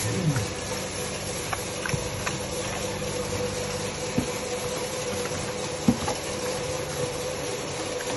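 Pig eating from a feed tub: irregular chomping and munching with sharp clicks and knocks, the loudest about four and six seconds in, and a short low grunt at the very start. A steady hum runs behind.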